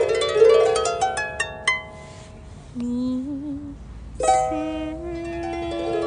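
Small harp played by hand, plucked notes ringing over one another, with a quick run of high notes about a second in. Midway the playing thins out and a short, wavering sung note is heard, then a strong chord is struck about four seconds in and the notes ring on.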